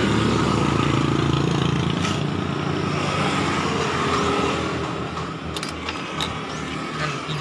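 A vehicle engine running steadily with a low even drone that eases off somewhat after about four seconds, with a couple of light clicks near the end.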